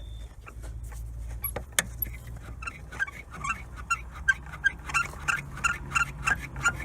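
Lada Granta's handbrake cable squeaking as it rubs, a rapid run of short creaks about three a second starting about two and a half seconds in, over a low rumble. The cable chafes because its rubber sleeve has slipped out of its place in the middle.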